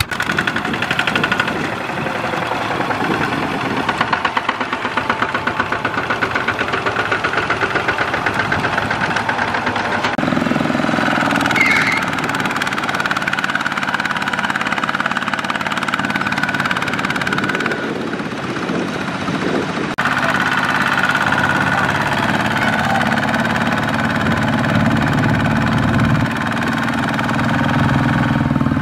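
Single-cylinder diesel engine of a two-wheel walk-behind tractor (Kubota ZT120 type) running with a fast, even beat while hauling a loaded trailer of rice sacks. The engine sound changes abruptly twice, about a third and two thirds of the way through.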